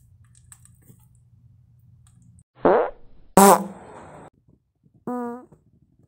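Three fart sound effects in a row after a faint hum. The first, starting about two and a half seconds in, is short and falls in pitch. The second follows a moment later with a sharp start and is the loudest and longest, noisy with a low buzz under it. The third, near the end, is shorter and quieter, with a wavering pitch.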